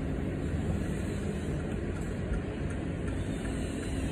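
Steady low rumble of a distant helicopter in flight, with a faint steady hum.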